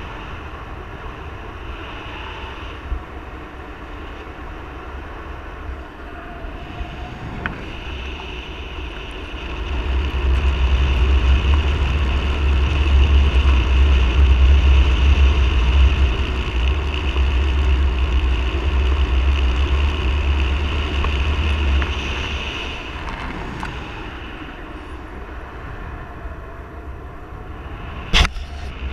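Wind noise from the airflow of a paraglider in flight, rushing and buffeting over the camera's microphone. It grows much stronger from about ten seconds in and eases off again a little past twenty. A sharp knock comes near the end.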